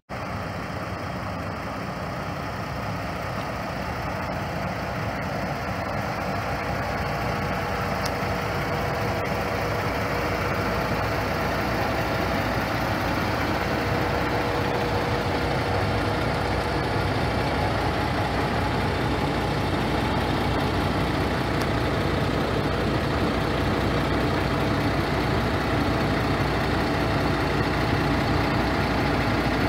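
2015 International ProStar semi tractor's diesel engine idling steadily, growing a little louder over the first ten seconds.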